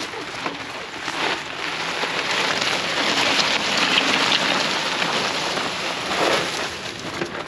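Tyres of an Outrider Coyote electric four-wheel-drive ATV rolling over rough ground: a rough hiss with scattered clicks that swells to its loudest about halfway through and eases off near the end.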